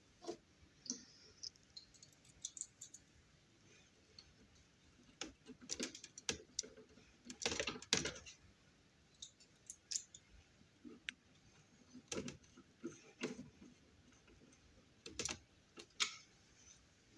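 Irregular light clicks and taps of a screwdriver and a small plastic part being worked by hand against a wooden frame, with a louder clatter about eight seconds in.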